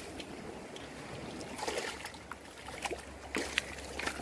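A hooked striped bass splashing and thrashing in shallow water as it is pulled in to the rocky shore, with a few sharp knocks.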